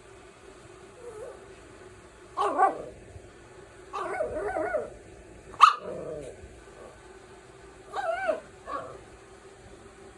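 Puppy barking and growling: short, high barks and a sharp yip spaced a second or two apart, with a longer wavering growl between them.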